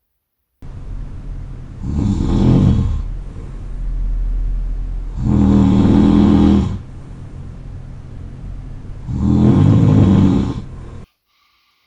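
A man's heavy snoring in his sleep, played from an overnight recording: three loud snores about four seconds apart, each lasting a second or more, with a quieter steady sound between them. The recording starts and cuts off abruptly.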